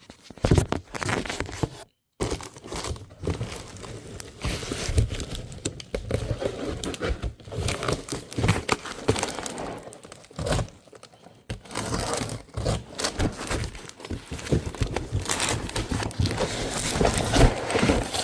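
Turbo kit packaging being unpacked by hand: irregular rustling and handling noise with scattered knocks, cutting out briefly about two seconds in.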